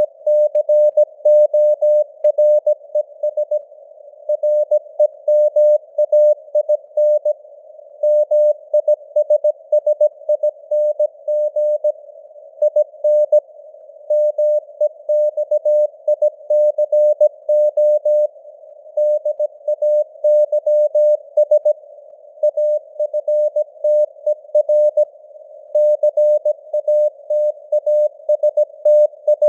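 Morse code sent as a CW tone of about 600 Hz at 17 words per minute, keyed on and off in dots and dashes with short gaps between letters and words. A narrow band of simulated radio hiss sits around the tone between the elements.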